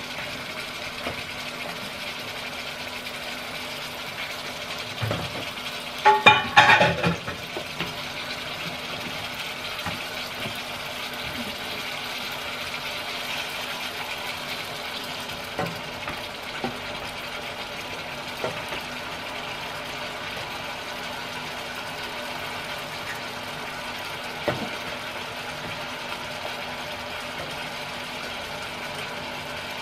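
Boiled pork frying with spices in a pan over a steady motor hum. A rapid clatter of a utensil against the pan comes about six seconds in, with a few single knocks later.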